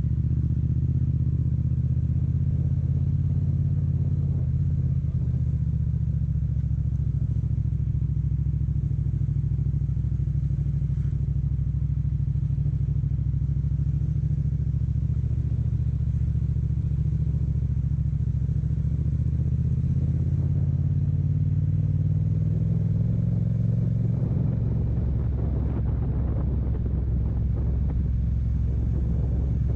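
Yamaha MT-07 parallel-twin motorcycle engine running steadily as the bike is ridden. The engine note climbs about twenty seconds in, and the sound turns rougher and noisier over the last few seconds.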